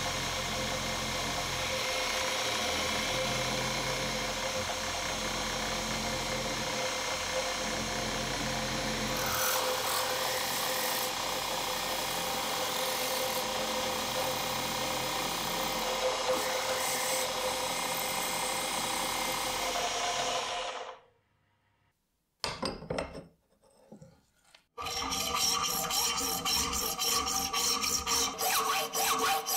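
A milling machine running steadily with a held tone, its cutter working into brass, stops about two-thirds of the way through. After a short gap with a brief sound, a hand hacksaw cuts a brass bar clamped in a vise in rhythmic back-and-forth strokes.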